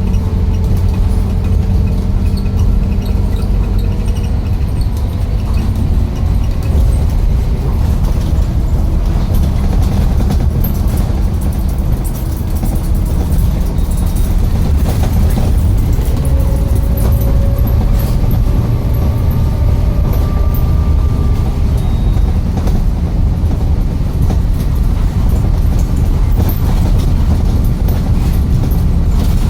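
Bus engine and drivetrain running under way, a steady low rumble with tones that slowly rise and fall in pitch as the speed changes.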